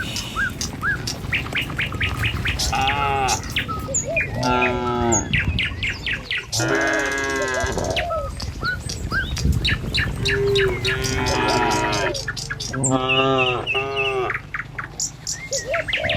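Cattle mooing over and over, about five long calls, while birds chirp in quick high series between and over them.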